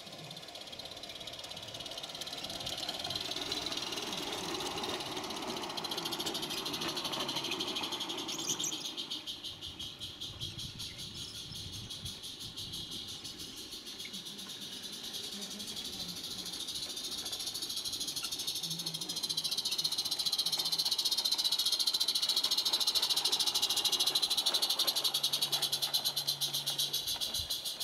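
16mm-scale live-steam garden railway locomotive running with its coaches: a steady steam hiss over a fast, even beat, growing louder as the train comes past.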